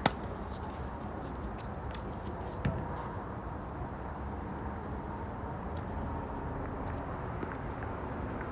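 A tennis racket strikes the ball on a forehand, a single sharp pop right at the start, with a second, weaker knock about two and a half seconds later. Faint scattered clicks sit over a steady low outdoor rumble.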